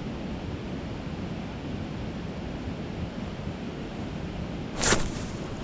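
Steady rushing of flowing creek water, with a brief sharp noise near the end.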